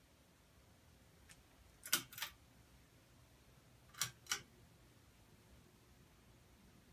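A faint click, then two pairs of sharp clicks about two seconds apart, the clicks in each pair about a third of a second apart, against a near-silent background.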